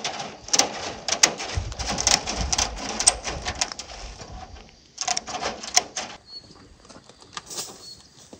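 Aviation tin snips cutting through steel wire mesh: a quick run of sharp metallic clicks and snaps, with the mesh rattling. Near the end it quietens, and a few faint bird chirps come through.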